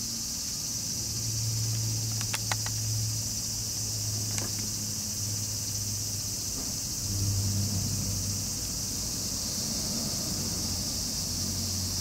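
Outdoor ambience: a steady high-pitched insect chorus over the low hum of distant traffic that swells and fades, with a few light clicks about two and a half seconds in and again near four and a half seconds.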